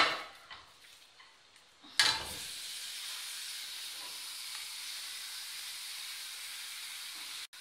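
A sharp click, then about two seconds in the marinated chicken drops into the hot non-stick frying pan with a soft thump and starts sizzling with a steady hiss, which cuts off abruptly near the end.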